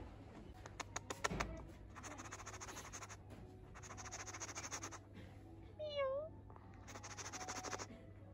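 White fox giving one short, high whine about six seconds in, between several light clicks and stretches of fast, scratchy noise.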